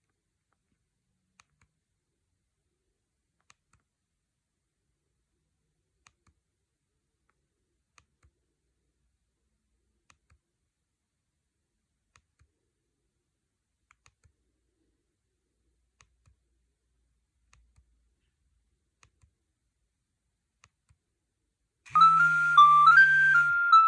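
Faint single clicks about every two seconds, typical of a Nokia 6610's keypad being pressed, then a Nokia 6610 ringtone starts about 22 seconds in: a stepping melody of short notes over a low bass line.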